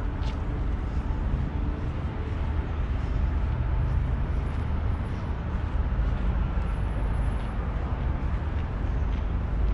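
Steady city traffic noise: a continuous, even din of passing vehicles, heaviest in the low end.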